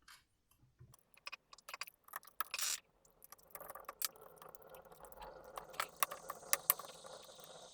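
Small clicks, taps and scrapes of a laptop's Wi-Fi card being handled and fitted into its slot on the motherboard. A faint steady whirr joins about three and a half seconds in.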